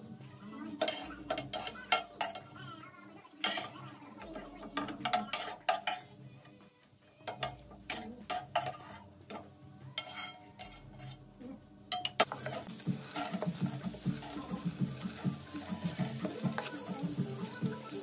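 A metal spoon scrapes and clinks against a frying pan as pieces of liver are lifted out of the hot oil. About twelve seconds in, a steady sizzle sets in as chopped vegetables go into the oil and are stirred with a wooden spatula.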